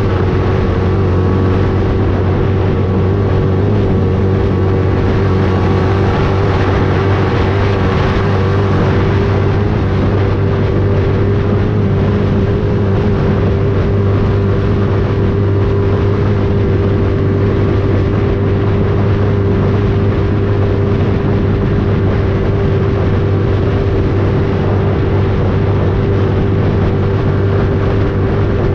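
A steady engine drone with a constant low hum and a steady higher tone, holding the same pitch and level throughout with no revving, like a motor vehicle running at an even speed.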